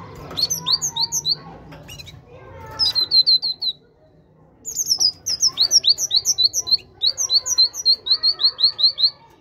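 Great tit singing: bursts of quick repeated two-note phrases, a higher note then a lower one, about four a second. The longest run starts about halfway through and goes on to near the end.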